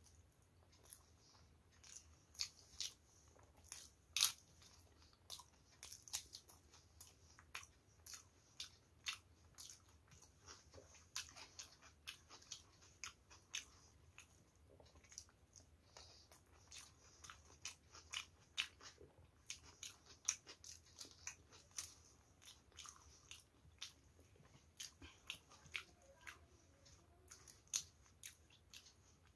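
Close-miked chewing of a hand-fed mouthful of rice and dal, with many short crunching clicks and wet mouth sounds coming a few times a second.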